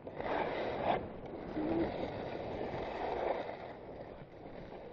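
Skis sliding and scraping over packed snow in a slow run, a steady hiss that swells now and then.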